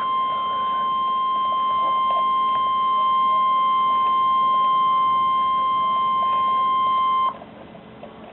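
NOAA Weather Radio warning alert tone: a single steady beep held for about seven seconds, then cut off abruptly, leaving faint radio hiss. It signals that a warning message, here a severe thunderstorm warning, is about to be read.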